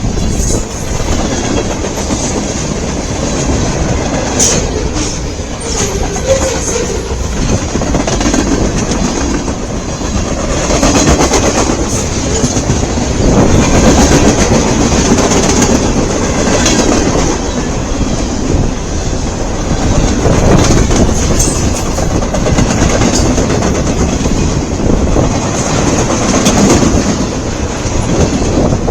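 Long mixed-freight train's cars rolling past at speed: a continuous loud rumble and rattle of wheels on rail, with scattered clicks as the wheels cross joints.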